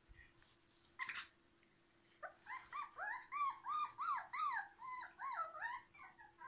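Mudi puppy, about four weeks old, whining: a run of short, high cries, each rising and falling in pitch, about three a second, starting about two seconds in.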